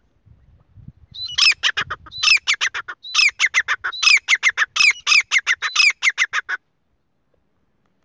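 Grey francolin (teetar) calling: a loud run of about five repeated phrases, each opening with a high rising-and-falling note and followed by a quick string of sharp notes. It starts about a second in and stops abruptly a little after the middle. Faint low rustling comes before it.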